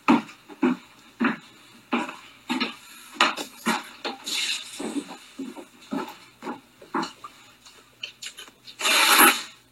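Footsteps, roughly one and a half a second, with a louder half-second rush of rustling noise about nine seconds in.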